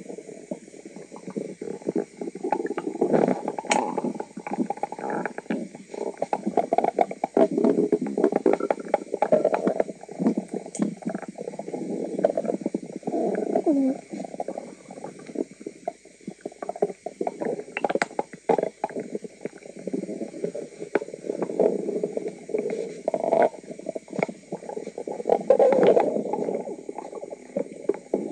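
Human stomach gurgling almost without a break: bubbly, watery rumbles that swell and fade, dotted with small pops and clicks. It is a really noisy tummy.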